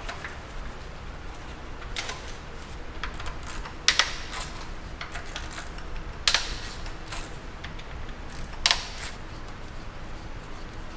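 Metal clicking and clinking of hand tools and loose engine parts during a cylinder head teardown, with a few sharp metal clanks a couple of seconds apart, the loudest about four seconds in.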